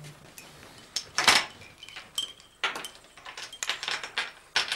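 China and teaspoon clinking: a small coffee cup knocking on its saucer and a spoon against china, in a series of short clinks with the loudest about a second in.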